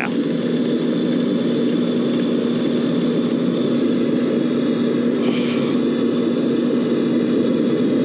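Gas package furnace unit running: a steady motor hum with a constant rush of air.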